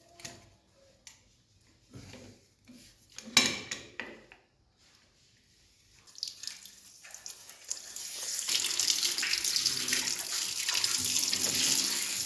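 A few clicks and knocks of a water tap being handled, then water starts to run from the tap about six seconds in, building to a steady rush of running water by about eight seconds.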